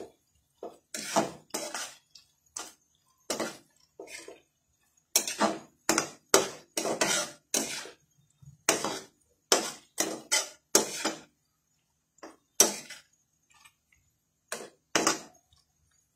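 A spatula scraping and clanking against a metal kadai as chicken and vegetables are stirred. It comes as irregular bursts of short strokes with brief pauses between them.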